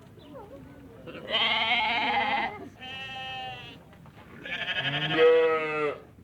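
Goat bleating three times: two loud calls, each a little over a second long, with a softer, higher call between them.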